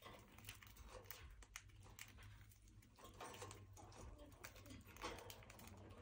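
Faint, irregular clicking and tapping of budgies pecking at a millet spray and moving about a wire cage.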